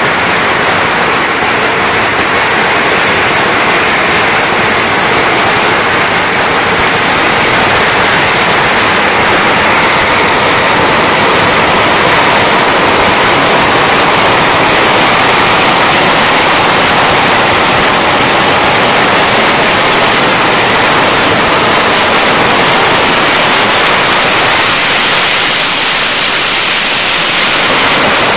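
A long string of firecrackers burning, the bangs so rapid that they merge into one steady, loud crackle.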